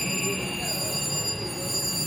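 Electronic slot machine tones over the hubbub of a casino floor. Several steady high tones hold throughout, and one tone glides slowly down in the first half second.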